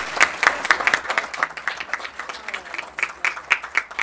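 A small group of people applauding, with individual hand claps clearly separate from one another.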